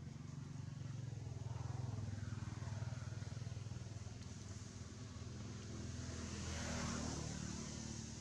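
A motor vehicle's engine running steadily as a low hum that builds during the first two seconds, with a broad rushing swell about seven seconds in.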